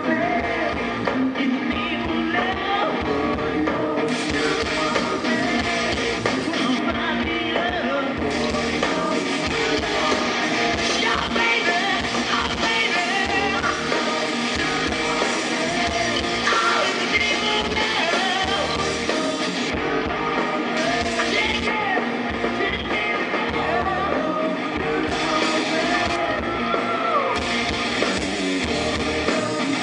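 Live rock band playing, with electric guitars, drums and singing.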